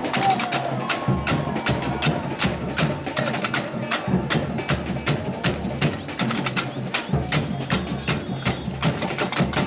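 Samba batucada drum corps playing a fast samba rhythm: dense, even sharp strokes of the higher drums over repeating deep bass-drum beats.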